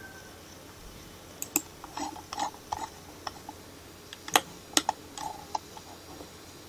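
Computer mouse clicking, with ticks from its scroll wheel as the drawing is zoomed in and out, in scattered clusters of sharp clicks; the loudest clicks come a little over four seconds in.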